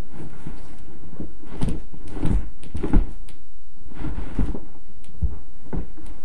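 Cardboard box scraping, rustling and thumping as someone inside pushes and struggles against its walls and flaps to get out, with irregular knocks, the sharpest about three seconds in.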